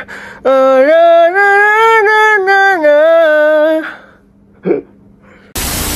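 A man sings a sustained melodic phrase with a pencil held crosswise between his teeth, a warm-up meant to relax the mouth and make the words come out clearer. The singing stops about four seconds in, and a short, loud burst of noise comes near the end.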